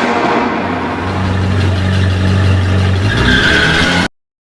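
A vehicle engine running steadily, with a higher whine joining about three seconds in; the sound cuts off abruptly just after four seconds.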